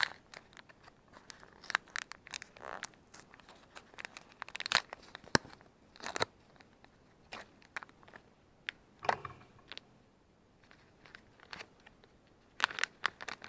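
Small package being opened by hand: packaging tearing and crinkling in short bursts, with scattered light clicks and scrapes.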